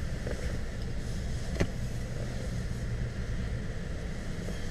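Car engine idling steadily, heard from inside the cabin as a low rumble, with one sharp click about a second and a half in.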